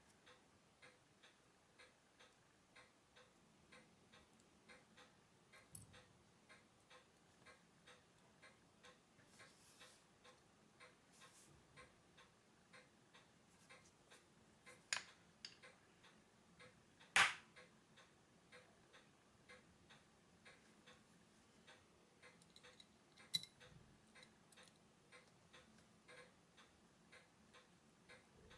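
Faint steady ticking of a timepiece, about two ticks a second. A few sharper single clicks of tools and small metal watch parts on the bench sound over it, the loudest a little past halfway.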